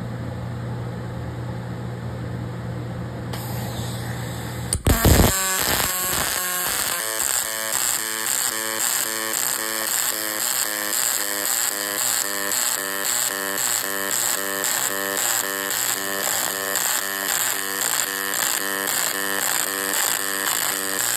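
Steady machine hum, then about five seconds in a robotic gas-metal arc weld strikes with a sudden loud burst and settles into a steady, evenly pulsing buzz as OTC DAIHEN's Synchro-Feed wire feeder runs the low-spatter arc along the joint.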